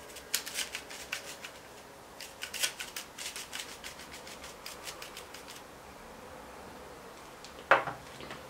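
Metal flour sifter clicking rapidly in two runs as it is worked to dust powdered sugar, followed near the end by one louder knock.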